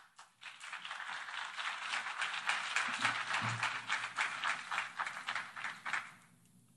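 Audience applause, many hands clapping at once. It starts about half a second in and dies away about six seconds in.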